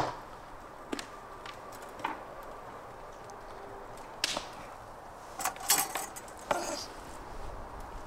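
Meat being threaded onto metal skewers and handled on a wooden board: scattered clicks, knocks and short scrapes, a few clustered together about two thirds of the way in, with a sharp knock at the very start as the loudest sound.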